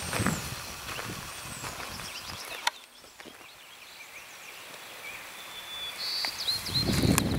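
Footsteps on a gravel road, with a few short high bird chirps. The steps fade out early on, leaving a quiet stretch with birds, and come back near the end.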